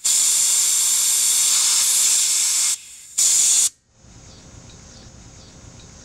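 R-22 refrigerant and air hissing out of a cracked-open hose connection at the recovery tank, purging air from the recovery hose. The loud hiss breaks off briefly near three seconds, spurts once more for about half a second, then stops.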